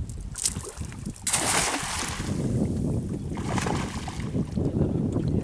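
Wind rumbling on the microphone over open river water, with two brief hissing rushes of water noise, the first just over a second in and the second near the middle.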